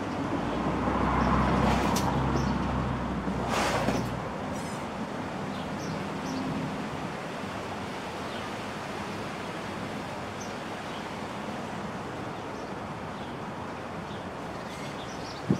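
A motor vehicle passing on a nearby street, its low engine rumble swelling about two seconds in and fading by about four seconds. After that, steady outdoor background with faint high chirps.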